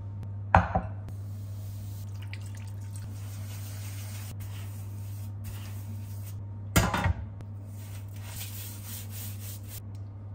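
Kitchen food-prep handling over a steady low hum: a loud clatter about half a second in and a short cluster of knocks around seven seconds in, like a dish or bowl being knocked against the wooden board. Between and after them come soft rubbing and crackling as hands work the wet salt crust and the fish.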